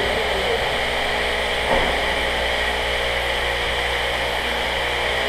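A steady droning hum over a constant hiss, unchanging throughout.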